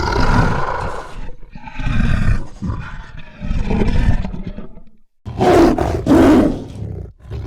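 Loud animal roars, several in a row with short breaks between them.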